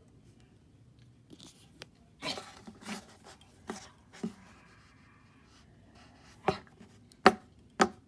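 Plastic toy figures being handled and set down on a surface: scattered light clicks and taps, with the sharpest few knocks near the end.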